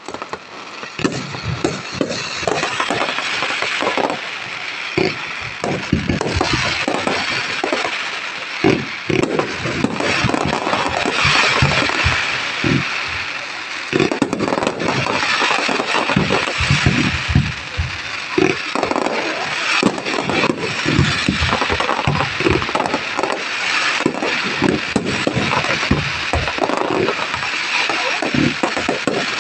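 Fireworks display: an unbroken run of irregular bangs and booms over continuous dense crackling, with a few heavier booms standing out.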